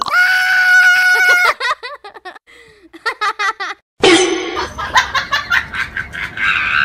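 A girl's high squeal held steady for about a second and a half, breaking into giggling laughter. More laughter in quick bursts follows a sudden change about four seconds in.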